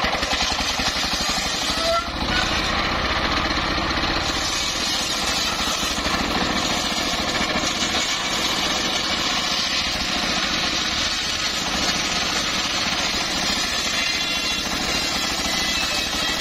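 Engine-driven homemade circular saw bench running steadily, its large blade ripping along a teak log.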